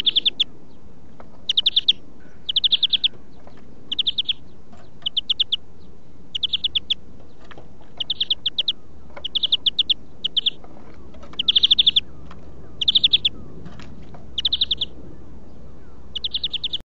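European greenfinch song: a series of short, fast trills, each well under a second, repeated about once a second.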